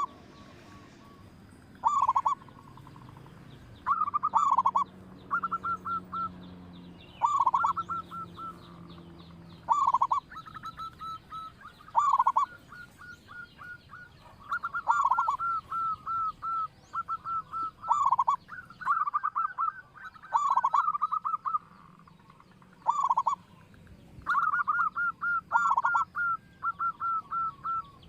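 Local Indonesian zebra dove (perkutut) cooing: repeated phrases of short, quick notes, each ending in a drawn-out falling coo, coming about every two seconds.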